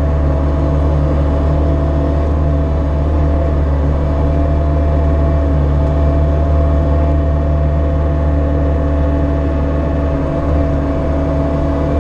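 Bobcat E42 mini excavator's diesel engine running steadily under digging load, a low drone with a steady whine over it, heard from inside the operator's cab.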